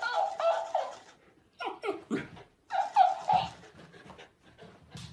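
A dog whining and yowling in several short bursts, some held for about a second, mixed with a talking hamster toy repeating the sounds back at a higher pitch.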